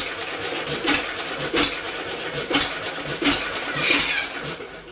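Homemade double-expansion four-cycle engine built from a two-cylinder air compressor, turning over with regular metallic clacks a little more than once a second over a steady hum. It fades near the end, failing to keep itself running.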